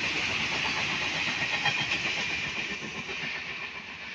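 A loaded coal freight train rolling past: a steady rush of wagon wheels on the rails, with a few sharper clacks about a second and a half in. The sound fades over the last second and a half as the end of the train goes by.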